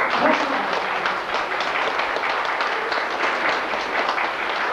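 Crowd applauding: many hands clapping in a dense, steady clatter that starts suddenly.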